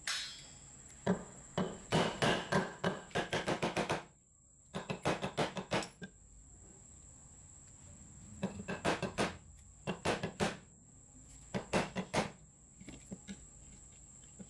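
Runs of rapid knocks, several a second, the longest lasting about three seconds near the start and shorter runs after it: the rusty metal housing of an old Hitachi G13S1 angle grinder being knocked against a wooden post held in a vise.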